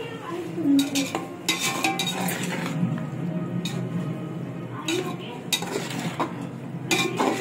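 A spoon clinking and scraping against a cooking pot in repeated short strokes while yogurt is added and stirred into the frying tomato masala.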